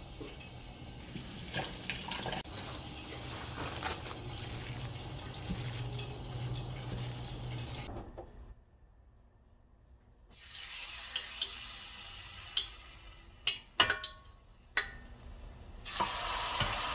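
Battered squid frying in hot oil: a steady sizzle that drops to near silence about eight seconds in, then comes back with a few sharp utensil clicks and is louder near the end.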